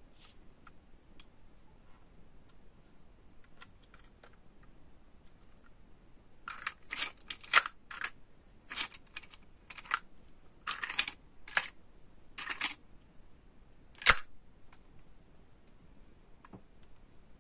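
Hard plastic clicking and clacking from a Chupa Chups dragon lollipop-holder toy handled and worked by hand, its jointed arms and jaw mechanism moving. A few faint ticks, then a quick run of sharp clicks in the middle, and one louder single snap shortly after.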